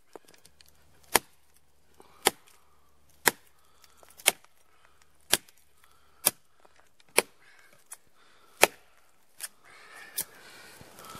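Gerber Gator Junior machete chopping into a block of wood: about ten hard, sharp strikes, roughly one a second.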